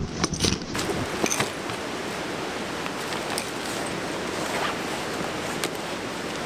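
A backpack of fishing gear being handled and shouldered: clicks and rustles in the first second or so, then a few faint ticks, over a steady rushing noise.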